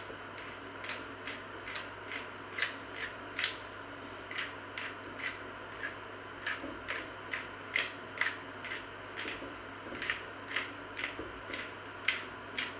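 Short, crisp clicks, about two a second with a brief pause about three and a half seconds in, from a small spice container worked by hand over a pot of soup.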